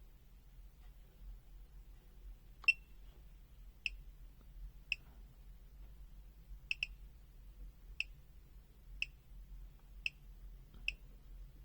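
Sharp single clicks, about one a second with one quick double, the first the loudest. This is typical of the detented voltage control on a power supply being stepped down a notch at a time to lower the supply voltage to the multimeter.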